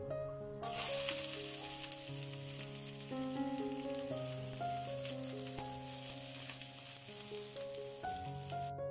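Chopped red onions hitting hot oil in a non-stick frying pan and sizzling, starting sharply under a second in and frying steadily until the sizzle cuts off suddenly near the end. Background music with held notes plays underneath.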